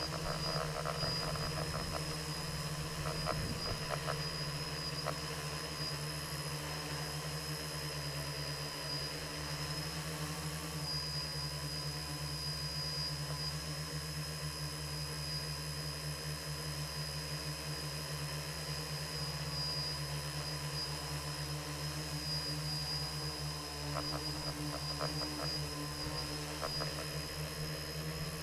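Quadcopter drone's electric motors and propellers running steadily in flight, heard from on board, with a constant high whine over a low hum.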